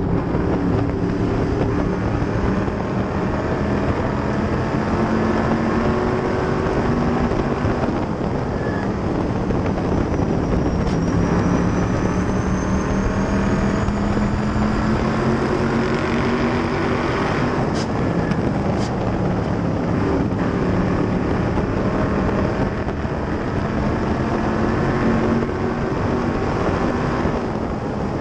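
SK Lite Modified race car engine heard onboard at racing speed. The revs climb along each straight and drop into each turn, about three times over, with wind rushing over the microphone.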